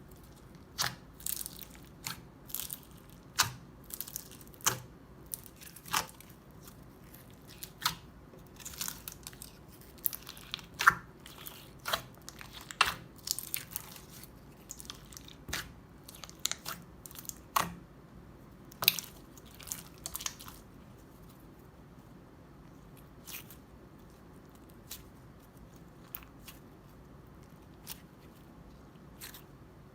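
Crunchy slime being squished and pressed, giving sharp crackles and pops: many in quick succession for about the first twenty seconds, then only an occasional one.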